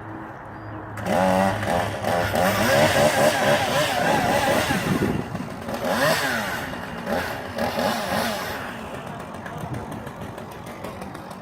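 Chainsaw engine coming in about a second in and revving up and down repeatedly, easing off near the end.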